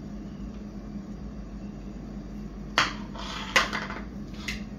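Ceramic plates knocked and slid on a stone countertop: a sharp clack, a short scrape, a second clack, then a lighter knock near the end, over a low steady hum.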